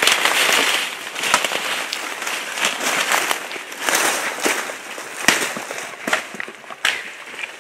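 Footsteps pushing through dense forest undergrowth: leaves and brush rustling against legs and clothing, with many dry twigs snapping underfoot and a sharper snap about five seconds in.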